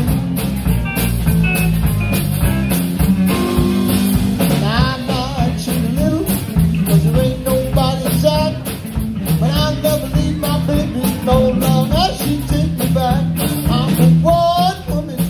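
A blues band playing live, with electric guitars and a drum kit keeping a steady beat under a wavering lead line.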